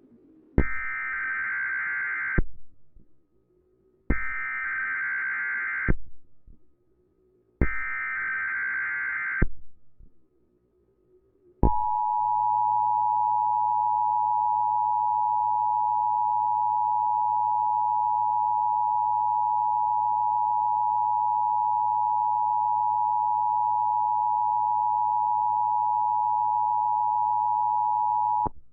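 Emergency Alert System broadcast tones: three bursts of digital data noise (the SAME header), each about two seconds long with short gaps between, then the EAS two-tone attention signal, a steady harsh tone held for about seventeen seconds that cuts off suddenly near the end. These tones open an EAS alert, here a test.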